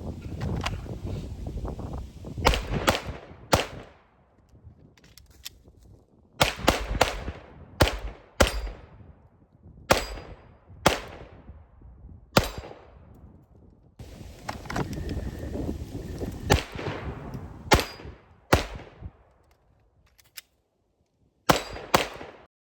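Shadow Systems DR920 9mm pistol fired at a steel gong target: about fifteen sharp shots in strings, roughly a second or less apart, with pauses between strings. Several shots are followed by the thin ring of the steel gong being hit.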